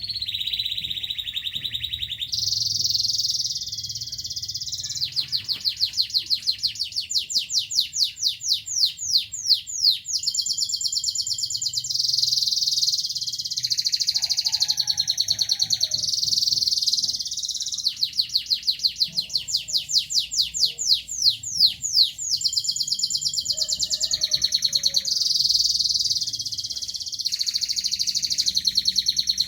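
Local domestic canary (kenari lokal) singing a long unbroken song: continuous high warbling with two long, fast trills of rapidly repeated notes, about a fifth of the way in and again past the middle.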